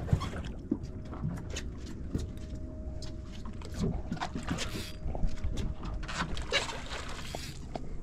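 Water sloshing and lapping against a boat's hull, with scattered clicks and knocks and a faint steady hum that stops about six seconds in.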